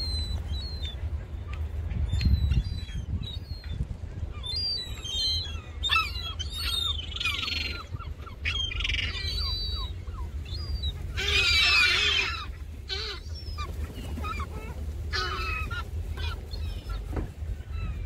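A flock of herring gulls, adults and juveniles, calling: many short high-pitched cries and whistles, broken by louder harsh squawks a few times, the loudest about eleven to twelve seconds in.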